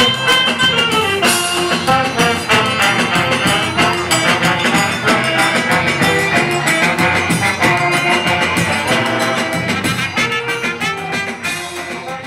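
Live band music with brass instruments playing a lively tune over a steady beat, fading out near the end.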